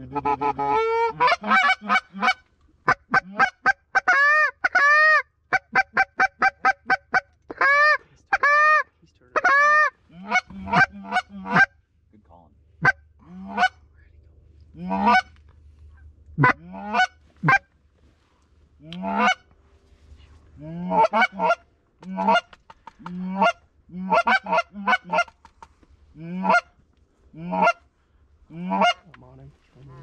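Canada goose honks and clucks: fast, loud runs of sharp calls for the first ten seconds or so, then spaced single and paired honks, with a faint low wind rumble underneath.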